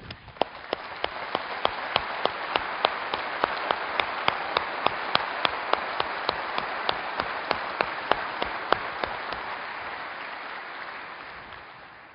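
A large audience applauding. The applause swells over the first couple of seconds and fades away near the end. Over it, one set of claps close to the microphone sounds sharply, about three a second, until it stops a few seconds before the end.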